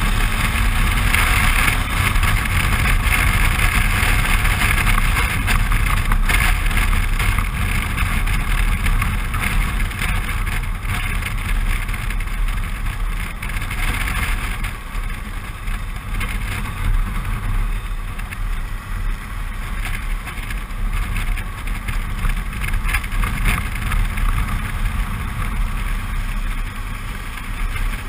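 Suzuki V-Strom 650's V-twin engine running at a steady cruising speed, mixed with wind rush and road noise on the bike-mounted camera's microphone.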